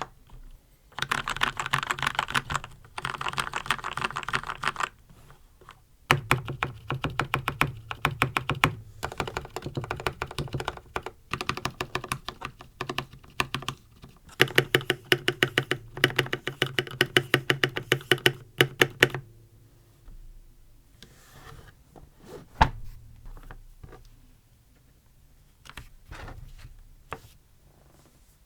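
Typing on a Red Dragon Kumara mechanical keyboard fitted with lubed red linear switches and its stock ABS keycaps: fast runs of keystrokes, thinning to a few scattered, quieter presses in the last third, with one sharp clack about 22 seconds in.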